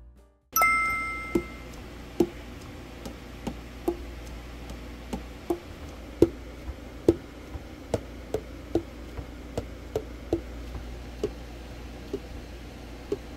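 Tenor saxophone keys being pressed and released by hand, their padded key cups closing on the tone holes with short clacks, roughly two a second at uneven intervals. The pads seat snugly on the tone holes, a sign of well-regulated keywork after overhaul.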